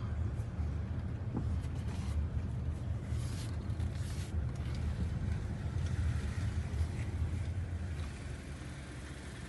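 Steady low rumble of a vehicle's engine and road noise while driving, easing slightly near the end.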